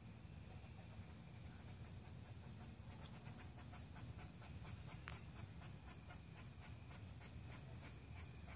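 Insects chirping in a steady, even, high-pitched rhythm of about three or four chirps a second, growing louder about three seconds in, over a faint low rumble.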